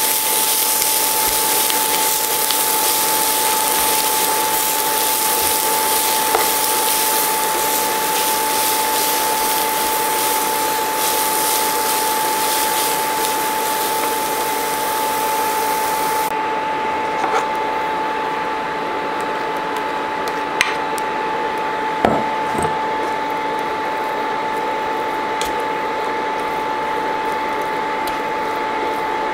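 Copper Chef induction cooktop running under a pan, a steady whine over its fan noise. A few light knocks of a plastic spatula against the pan in the second half.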